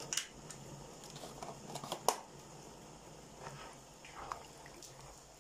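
Scattered light clicks and pops from a pot of thick tomato-based soup cooking on the hob, the sharpest about two seconds in, over a steady low hum.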